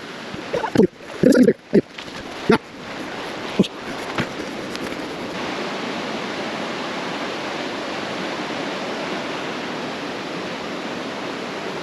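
Creek water rushing steadily, becoming a louder, even rush about five seconds in. A few short vocal sounds and sharp knocks come in the first few seconds.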